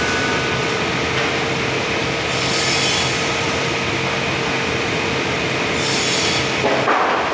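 Sawmill machinery running steadily with a constant whine. Higher hissing comes in twice, about two and a half seconds in and again around six seconds, and there is a short louder rasp near the end.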